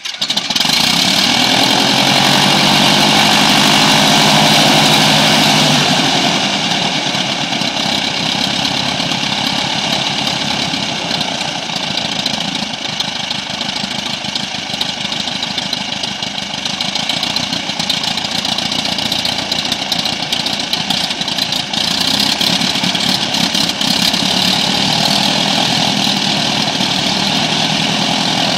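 Aerosport IO-360 180 hp fuel-injected four-cylinder aircraft engine of an RV-7 running with its propeller turning, just after its first-ever start. It runs louder for about the first six seconds, then settles to a steady, slightly quieter run.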